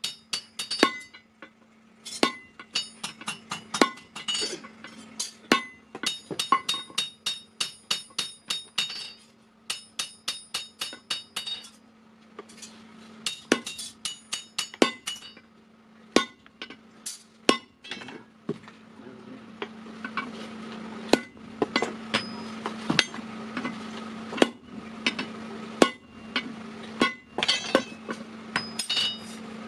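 Hammer blows on steel against an anvil, each ringing with a bright metallic tone, coming in runs of quick strikes with short pauses between them, as the steel of an old vehicle axle is forged into a hammer head. A steady low hum runs underneath.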